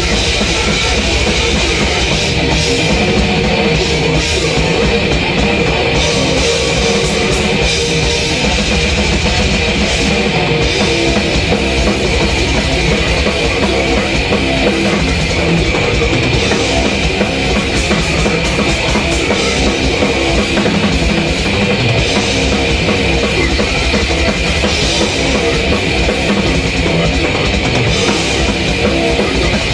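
Heavy metal played loud and without a break, led by a drum kit played fast and dense, with kick drum and cymbals over the rest of the music.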